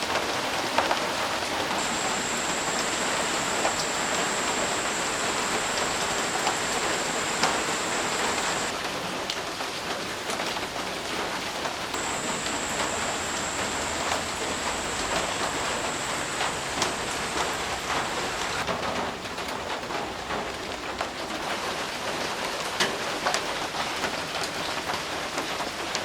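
Steady rain falling, with individual drops clicking sharply on nearby surfaces. A thin, steady high-pitched whine sounds over it twice, for several seconds each time.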